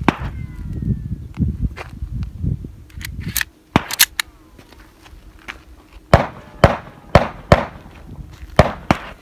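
Gunshots on an outdoor shooting range: a string of about six sharp cracks in the second half, each with a short echo. Around the middle come a few quicker, sharper clacks.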